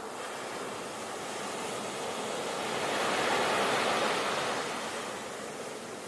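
Sea waves washing on the shore: a steady rush of surf that swells to a peak a few seconds in, then eases off.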